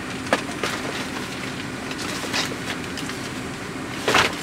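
Steady running hum of a car heard from inside its cabin, with a few scattered short rustles and clicks, the loudest about four seconds in.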